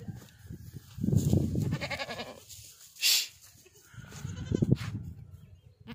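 Goats bleating: a wavering call about two seconds in and a fainter one near four seconds, between louder low rumbling noise on the microphone and a short hiss just after three seconds.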